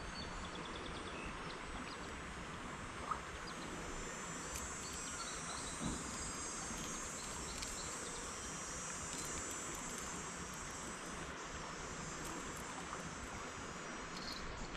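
Steady outdoor ambience: a continuous high chorus of insects over a low wash of noise, with a couple of faint knocks.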